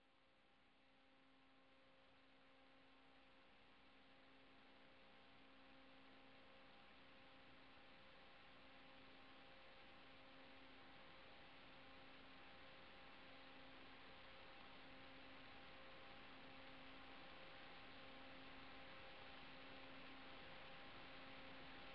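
Near silence: a faint steady electrical hum with hiss, slowly growing louder.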